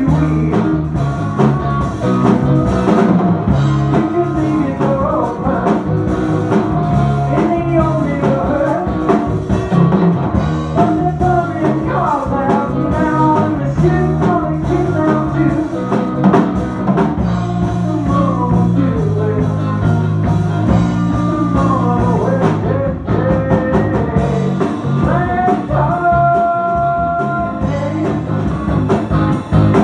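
Live progressive rock band playing: electric guitar, electric bass and drum kit, with a sung vocal line.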